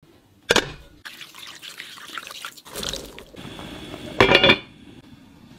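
Cooking sounds: a sharp click about half a second in, then liquid dripping and trickling with small handling noises. About four seconds in comes the loudest sound, a knock with a brief ring as the lid goes onto the pot.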